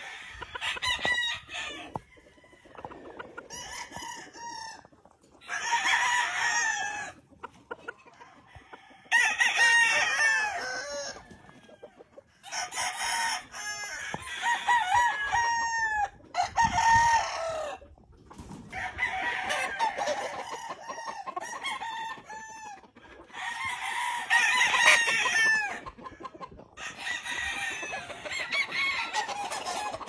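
Gamefowl roosters crowing again and again, one crow following another every few seconds, some overlapping.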